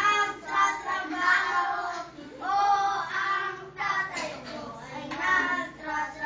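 Young children's voices singing or chanting together in phrases, with some held notes.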